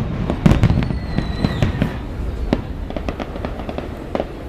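Fireworks display: a loud burst about half a second in, then dense crackling that thins out toward the end, with a thin whistle in the first couple of seconds.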